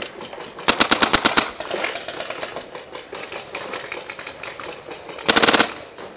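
Paintball marker firing two rapid bursts of shots, one about a second in and another near the end, with fainter scattered pops between.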